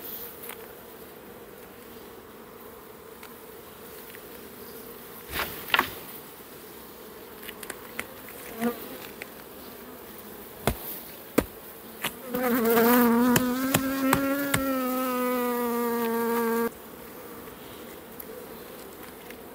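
Honeybees buzzing steadily around an open hive, with a few sharp knocks and clicks. About twelve seconds in, a single bee buzzes loudly right at the microphone for about four seconds, its pitch wavering slightly, then the buzz cuts off suddenly.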